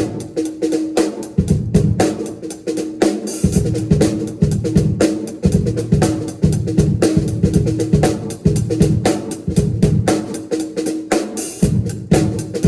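Drum kit played in a fast, busy pattern, with bass drum and snare hits coming several times a second without a break.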